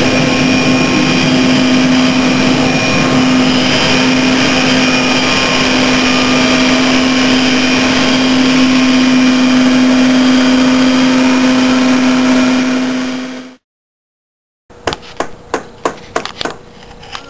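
A loud, steady mechanical drone with a strong low hum running under it, which cuts off abruptly about thirteen seconds in. After a second of silence comes a run of sharp clicks or crunches, about three a second.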